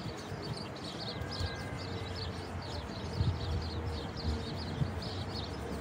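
Small birds chirping rapidly and continuously, several high chirps a second, over a low rumble of wind on the microphone. A faint steady hum comes from an approaching electric train.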